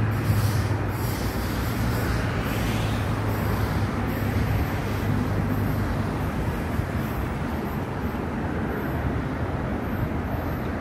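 Siemens Vectron electric locomotive running away along the track, a steady low hum with wheel-on-rail rumble. The hum is strongest at first and fades after about a second as the locomotive recedes.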